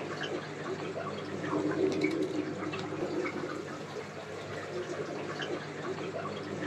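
Aquarium water trickling and dripping steadily, with many small splashes and a low hum underneath.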